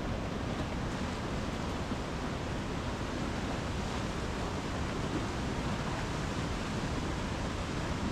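Flooded, swollen mountain river rushing over boulders: a steady, unbroken whitewater rush.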